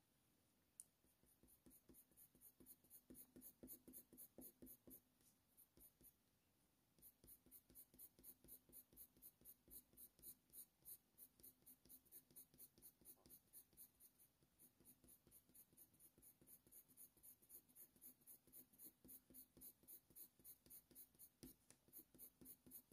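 Faint scratching of a Faber-Castell Polychromos coloured pencil on hot-press watercolour paper, in quick short strokes of about three a second, laying in fur. The strokes pause briefly near the start and again about six seconds in.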